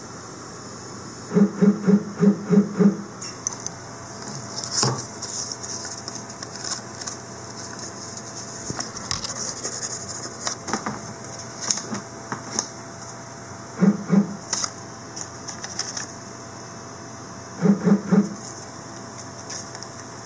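Stepper motors on a Dyna 3000 CNC lathe buzzing in short incremental jog moves as the tool is inched toward the workpiece to touch off. There are three groups of quick pulses: about seven near the start, two in the middle and four near the end. Faint paper rustles and clicks fall between them.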